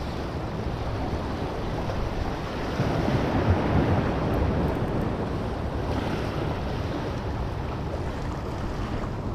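Ocean surf washing against jetty rocks, with wind rumbling on the microphone; the wash swells a little about three seconds in.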